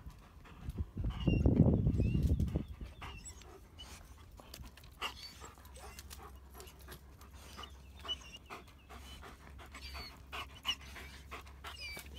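German Shepherd dogs panting as they climb over rocks, with scattered light clicks and scrapes. A brief loud low rumble comes about a second in.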